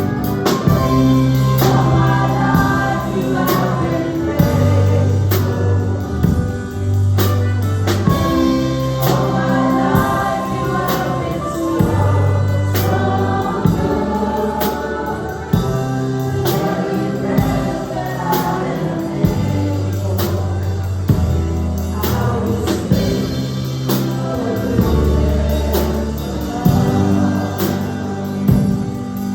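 Gospel worship song sung by a group of voices over a band, with sustained bass notes and a regular drum beat.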